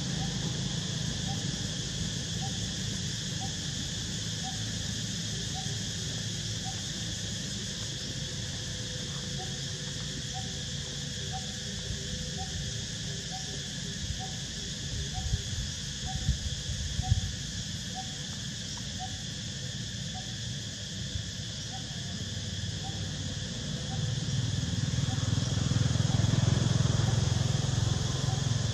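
Steady high-pitched insect chorus with a short piping note repeated evenly, about three times every two seconds. A few knocks come around the middle, and a low rumble swells near the end.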